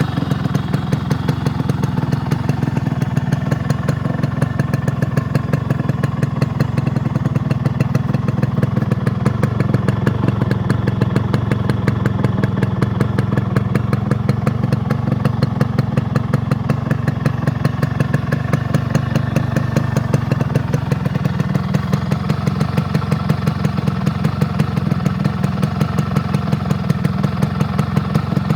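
Yamaha RX100's single-cylinder two-stroke engine idling steadily, with a quick, even pulsing exhaust beat.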